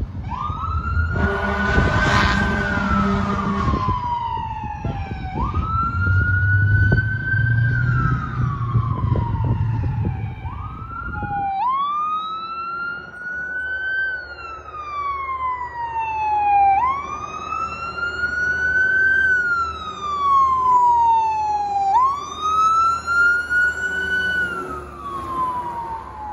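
Fire truck sirens wailing, each rise and fall taking about five seconds. A horn blast comes about a second in, over the heavy engine rumble of the ladder truck. About eleven and a half seconds in, the sound cuts to another fire engine's siren, wailing alone with little engine noise under it.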